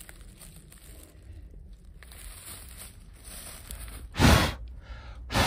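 Two short rushes of air on the microphone, one about four seconds in and a shorter one near the end, over a faint low outdoor background.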